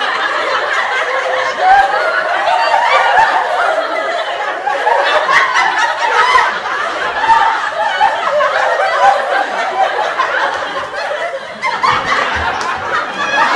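Canned audience laughter: many people laughing and chuckling together, continuous and loud.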